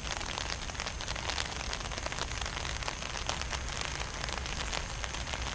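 Low rumble of a distant approaching freight train under a steady crackling hiss on the microphone.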